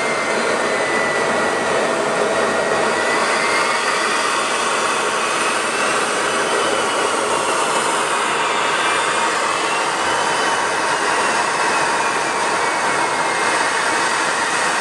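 Steady jet-aircraft roar of engine and rushing air, heard from inside an aircraft in flight, with a faint high tone slowly wavering up and down.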